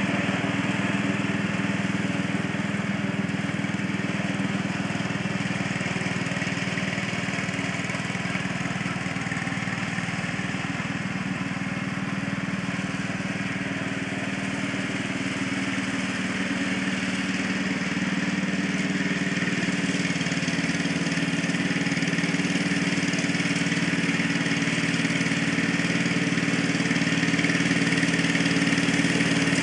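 Riding garden tractor's engine running steadily as it is driven across a lawn, growing a little louder in the second half as it comes closer.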